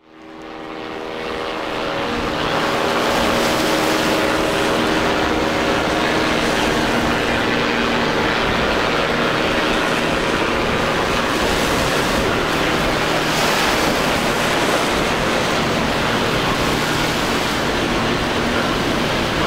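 Outboard motors of boats running through rough inlet water, a steady engine drone under a heavy wash of waves and spray. It fades in over the first couple of seconds, and the engine tone is clearest in the first several seconds before the noise of the water covers it.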